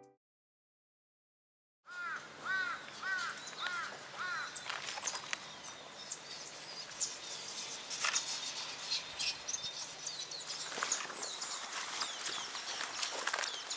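Outdoor ambience with a bird giving a quick series of four arched calls about two seconds in, followed by scattered faint chirps and clicks.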